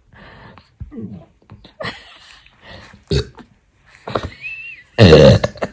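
A woman burping: a short burp about three seconds in, then a long, loud, deep burp near the end.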